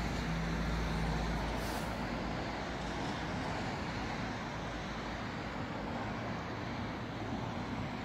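Steady road traffic noise from passing cars, with a low hum and rumble in the first second or so.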